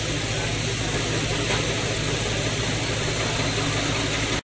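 Steady engine drone with a broad hiss over it, unchanging until it cuts off abruptly at the end.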